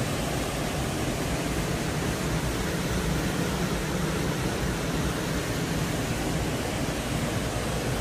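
Steady rush of a small mountain waterfall pouring into a rocky pool, with stream water running over stones in the shallows.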